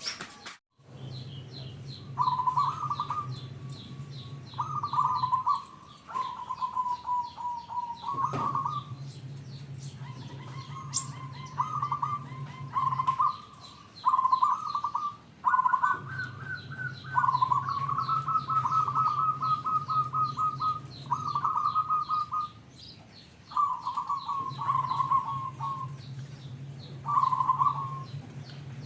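Zebra dove (perkutut) cooing in repeated rolling, pulsed phrases of a second or two each, with short pauses between them.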